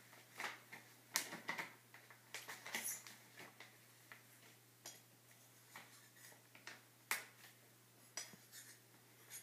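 Faint scattered clicks, taps and light scrapes of a knife and measuring cup as powdered sugar is scooped from a bag and levelled off, with two sharper taps about a second in and near seven seconds.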